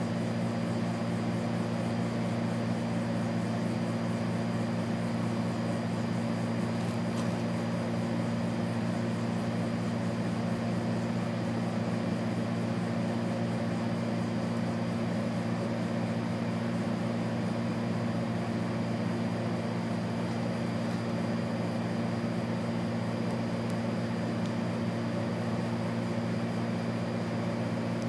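Steady low mechanical hum with a faint high-pitched whine over it, the level unchanging.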